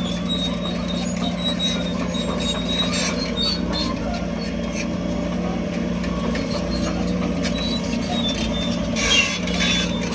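Heavy diesel earthmoving machine running steadily, with short high metallic squeaks and clanks over the engine drone and a brief louder burst of noise near the end.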